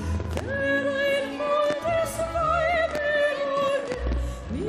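A woman singing in a classical, operatic style, holding long notes with wide vibrato, over an orchestral backing with a steady bass.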